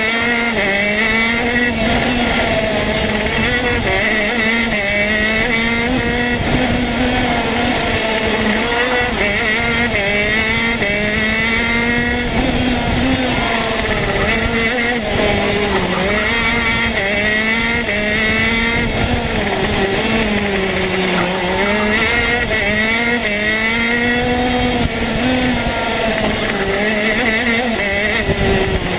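TM two-stroke racing kart engine at full race pace, heard onboard, its pitch climbing along the straights and dropping as the kart slows for the corners, again and again.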